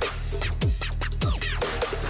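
Electronic music with a heavy beat and deep bass, its drum hits falling in pitch.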